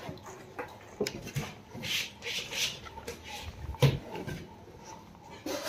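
Handling noise from unpacking a Samsung soundbar: the hard plastic speaker casing knocks a few times as it is picked up and turned over, with the loudest knock about four seconds in. Packing material rustles about two seconds in.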